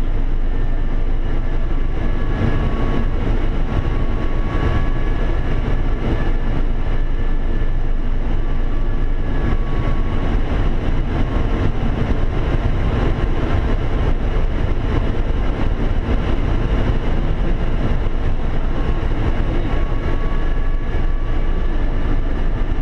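Steady rushing cockpit noise of an Airbus A380 flight deck in flight, with a few faint high tones that drift slightly in pitch.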